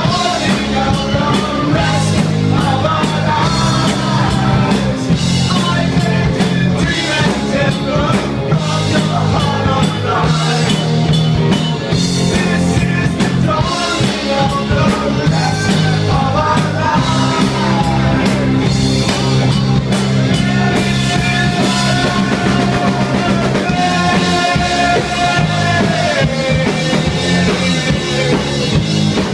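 Loud rock music with a pounding drum kit, heavy bass notes and a singer's voice carrying the melody.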